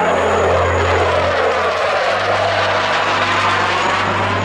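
An F-16 fighter's jet engine at high power as it flies past: a loud, steady rush of jet noise with a phasing whoosh in its tone that sweeps down and back up.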